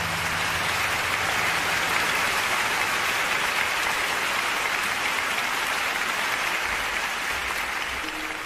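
Applause from many hands, a dense and steady clapping, with the song's last low notes dying away in the first second.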